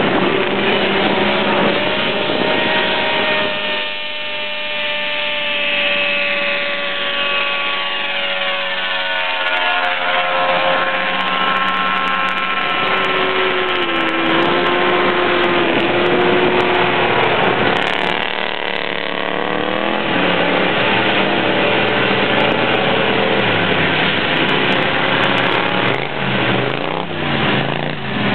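Several 6x6 ATV engines running hard at once in a race. Their high, buzzing tones rise and fall in pitch as the machines speed up, slow and pass.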